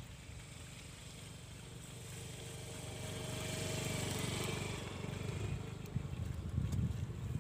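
A motor engine passing by, growing louder to a peak about four seconds in and then fading away.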